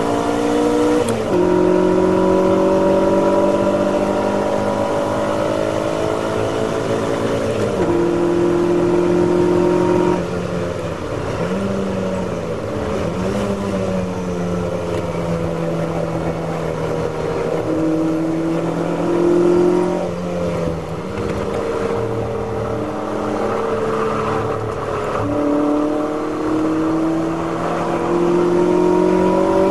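Ferrari V8 race car engine heard from inside the cockpit, running hard at high revs. Its pitch climbs under acceleration and sags when the driver lifts, and it jumps abruptly at gear changes several times.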